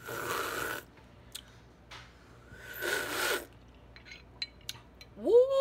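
Two noisy slurping sips of hot tea from a mug, each under a second, about two and a half seconds apart.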